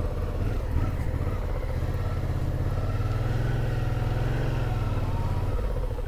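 Suzuki V-Strom 650's V-twin engine running steadily at low road speed. Its note swells slightly in the middle and eases off near the end as the bike slows.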